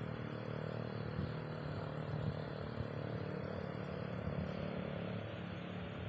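A steady low engine hum from an unseen motor, over an even outdoor hiss.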